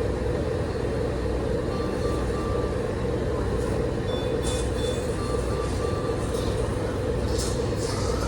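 Steady machine hum with a medical alarm sounding repeated sets of three short, even beeps, about every three seconds. Short hisses come now and then in the second half.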